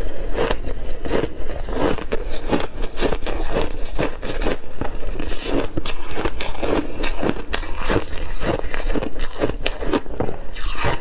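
Block ice coated thickly in matcha powder, with crunchy mixed berries, being bitten and chewed close to the microphones: a fast, uneven run of crisp, crackly crunches.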